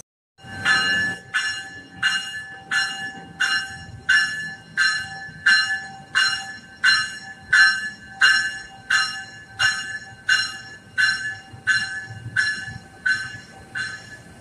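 NJ Transit double-deck commuter train's bell ringing steadily, just under three strikes a second, over the low rumble of the moving train. The ringing begins a moment in.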